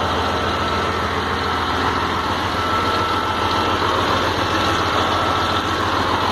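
Scania 114 truck's 11-litre straight-six diesel idling steadily, with a steady high whine above the engine note.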